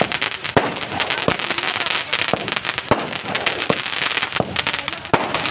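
Firecrackers going off in quick succession: a dense crackle with sharper single bangs about once a second.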